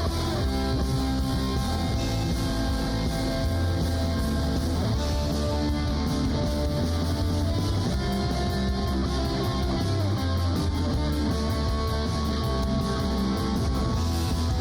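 Background rock music led by guitar, with a steady beat and a strong bass.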